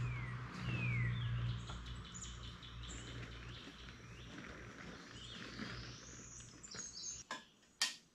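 Songbirds chirping and trilling in short falling and rising calls, over a low steady hum that fades away through the first half. Two sharp knocks come near the end.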